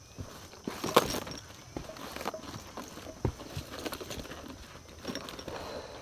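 Footsteps of hikers climbing a rocky mountain trail: irregular steps and scuffs, with a sharper knock about a second in.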